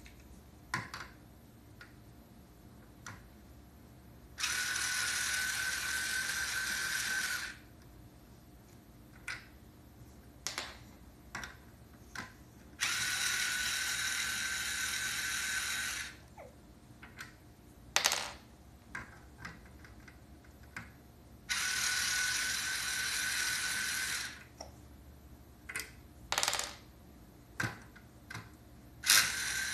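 Small battery-powered toy electric drill whirring in runs of about three seconds, three times, with a steady pitch, and starting again right at the end, as it drives plastic pegs into a pegboard. Between runs, plastic pegs and pieces click and clatter.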